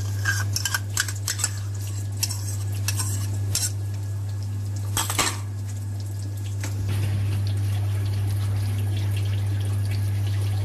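Utensil clinking and scraping against a wok and container as homemade tomato paste is spooned in, a string of short taps and knocks through the first five seconds or so, over a steady low hum.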